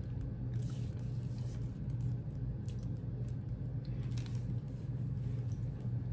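A person chewing chocolate, with a few faint clicks and rustles, over a steady low hum.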